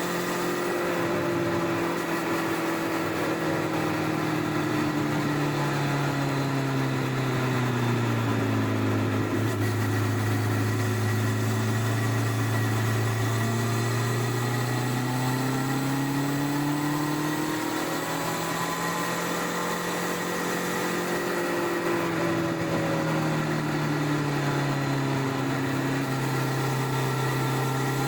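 1999 Honda CBR1100XX Blackbird's inline-four engine on stock exhaust, running steadily on the move, heard from under the seat. Its note slowly falls and rises twice as the engine speed eases off and picks up again.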